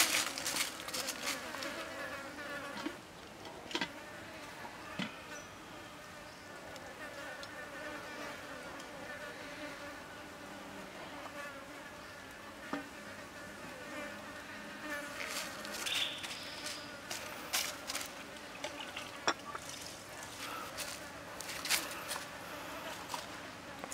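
Buzzing of a flying insect, steady but wavering in pitch, over scattered sharp clicks and taps.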